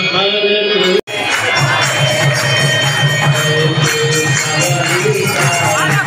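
Devotional kirtan music: voices singing a chant over steady jingling percussion, with crowd noise underneath. The sound drops out for an instant about a second in.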